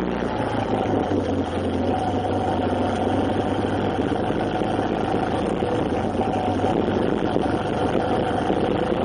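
A vehicle's engine running steadily at an even pitch, with road and wind noise around it.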